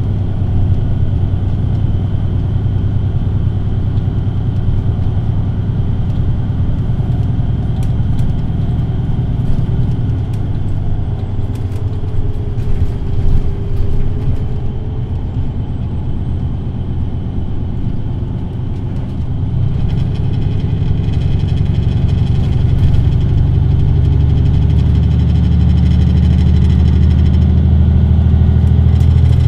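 VDL Citea LLE 120 city bus's diesel engine running steadily, dropping back around the middle, then pulling harder again about two-thirds in with its note rising slowly as the bus accelerates. A few light clicks and rattles sound early on.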